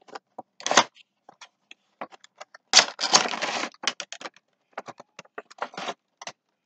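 Cardboard toy box and its plastic packaging being handled and opened: a string of irregular clicks and crackling rustles, with the longest and loudest rustle about three seconds in.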